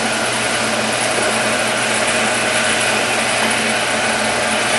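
Monarch 10EE tool room lathe running steadily at high spindle speed, around 1,500 RPM: an even machine hum under a broad hiss.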